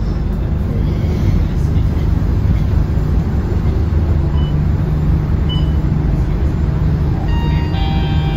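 Scania K230UB city bus's five-cylinder diesel engine running with a steady low hum, heard from inside the cabin. Several high steady tones come in near the end.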